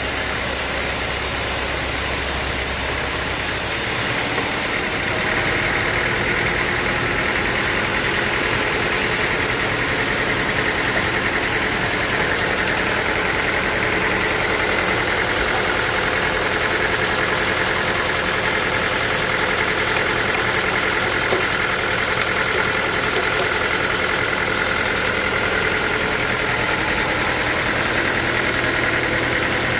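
Sawmill machinery running steadily, with a high steady whine setting in about five seconds in.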